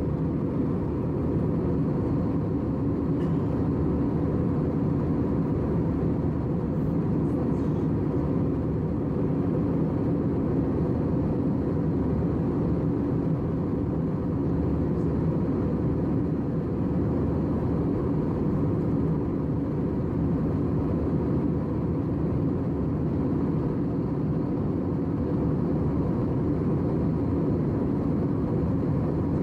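Jet airliner cabin noise in flight: a steady low drone of engines and rushing air that does not change.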